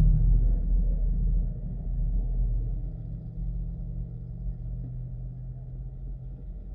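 Corvette V8 engine idling with the hood up, a steady low rumble that eases off and gets quieter after the first second or two.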